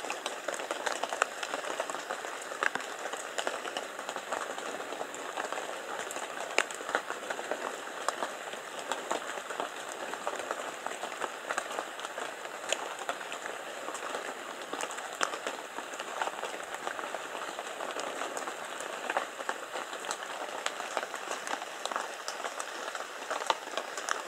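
Light rain pattering: a steady hiss dotted with many small ticks of drops.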